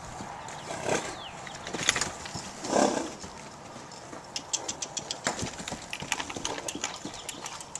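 Hoofbeats of a saddled horse moving around a round pen: scattered knocks and clicks, with a quicker run of clicks in the middle. There is a louder rushing burst about three seconds in.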